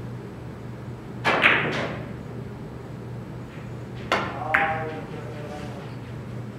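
Three-cushion billiards shot: the cue tip strikes the cue ball a little over a second in, quickly followed by sharp ball-on-ball clicks, then about four seconds in two more crisp billiard-ball clicks with a short ring as the cue ball reaches the other balls. A steady low hum sits underneath.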